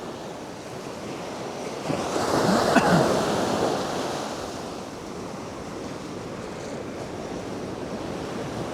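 Ocean surf: a wave builds and breaks about two seconds in, loudest near three seconds, then washes back into a steady surf hiss.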